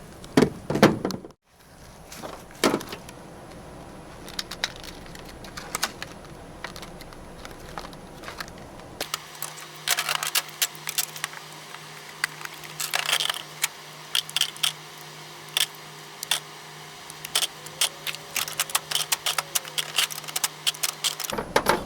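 Steel impact sockets clinking and rattling as they are pulled off their holder rails and put into a small box: many short, sharp metallic clicks, denser in the second half.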